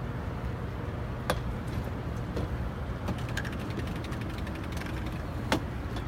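A fishing reel's ratchet clicking in a fast run of ticks as line is cranked in, with two sharp knocks of rod gear against the boat, over the steady low rumble of an idling boat engine.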